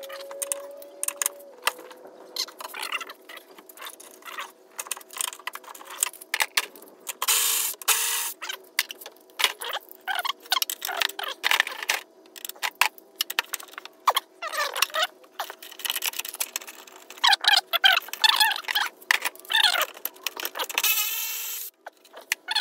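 Hand tools and loose bolts clinking and rattling in an engine bay while the wiper cowl is being unbolted: a scatter of short, sharp metal clicks and clatters.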